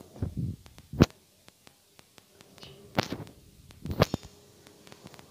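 Wooden spatula knocking and scraping against a nonstick kadhai while stirring tomatoes frying in oil: a few sharp knocks near the start, the loudest about a second in, and more at about three and four seconds.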